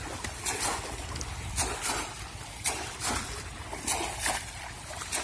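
Water splashing in a shallow flooded field as bamboo polo fish traps are plunged down into it and legs wade through, in a string of irregular splashes about one or two a second.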